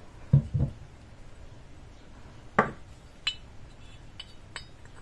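Cast zinc Pelton wheel buckets handled on a wooden workbench. There are two dull knocks near the start, a sharper knock about halfway, then a few light metallic clinks as the broken bucket pieces touch.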